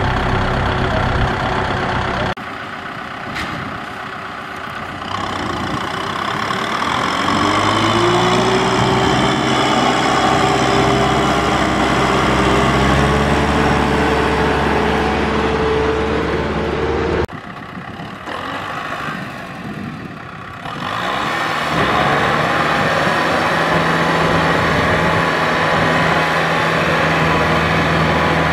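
Diesel tractor engines running in mud, across several clips. About six seconds in, one engine revs up and holds at high revs under load as the tractor struggles in the mud; after a break, another tractor engine runs hard at steady revs.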